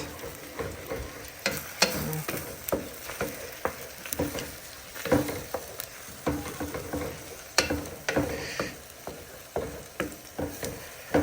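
A cooking utensil scraping and knocking irregularly against a hot pan as eggs are stirred in, with food sizzling underneath.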